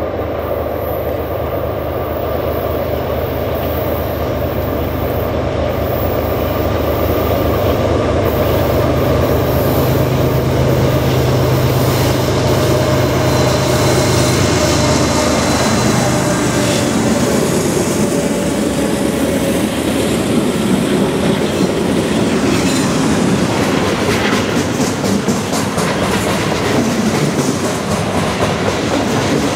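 Heavy freight train with five GE diesel locomotives (ES44DC and C44-9W units) approaching and passing. The deep steady drone of the locomotives' diesel engines grows louder and dominates until the units go by about halfway through. After that it gives way to the rolling rumble of loaded centerbeam flatcars, with rapid wheel clicks on the rails.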